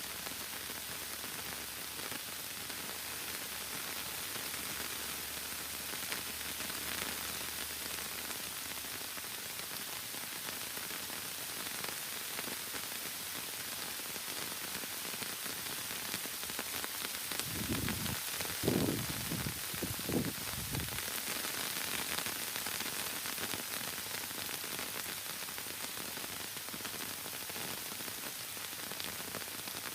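Steady heavy rain hissing on forest foliage, with a few low thumps a little past the middle.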